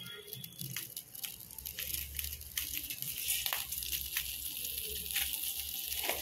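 Hot coconut oil sizzling in a metal kadai, getting a little louder about two seconds in as mustard seeds are tipped in, with scattered sharp pops and crackles as the seeds begin to splutter.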